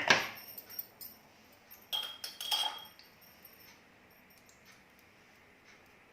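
Kitchen utensils clinking while straining ground shallots and honey: a sharp knock at the start, then two brief clinks with a short ring about two seconds in.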